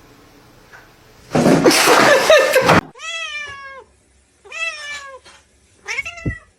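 A loud, harsh rasping noise lasting about a second and a half, followed by a cat meowing three times: two long meows that drop in pitch at the end, and a shorter one near the end.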